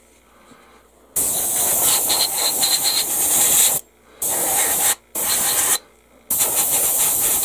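Airbrush spraying primer in four bursts of hissing air, the first and longest lasting nearly three seconds, with short pauses between.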